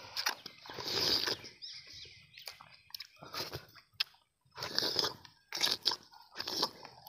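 Tender palmyra fruit (ice apple, nungu) being eaten close to the microphone: wet bites, sucking at the soft jelly and chewing, in short spells about once a second.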